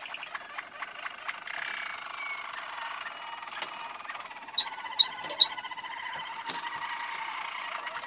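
Canaries singing: continuous rapid rolling trills, with three sharp, loud clicking notes in quick succession a little past the middle.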